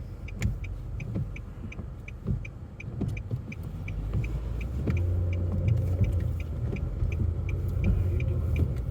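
Car interior with a low engine and road rumble that grows louder about halfway through as the car gets under way. Over it, a steady run of short ticks at about three a second, the clicking of a turn-signal indicator.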